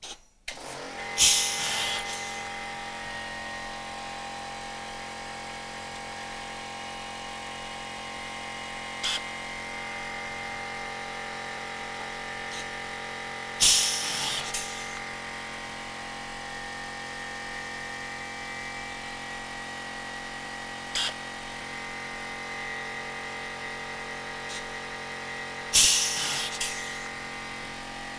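An air compressor's motor starts up and runs with a steady hum. Over it a pneumatic rivet nut gun cycles three times, each cycle a loud hiss of air about a second long, about twelve seconds apart, with a short click between cycles.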